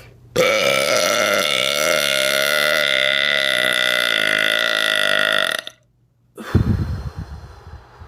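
A woman's long, loud, deliberate belch lasting about five seconds, holding a steady pitch with wobbling low tones, then cutting off abruptly. About a second later there is a brief low muffled rumble.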